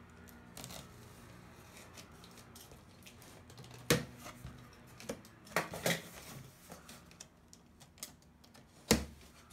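Cardboard turntable box and its packing being handled and opened: a few sharp knocks and taps, with faint rustling between them.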